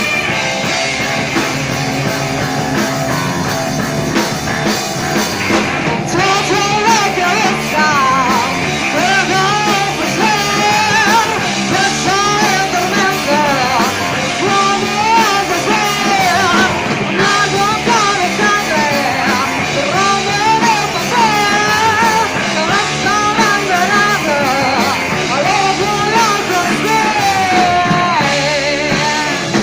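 Live rock band playing, with a singer coming in about six seconds in over the band.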